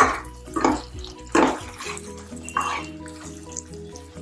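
A metal spatula scraping and stirring through thick, wet masala in a stainless-steel kadai, four strokes in the first three seconds, over soft background music.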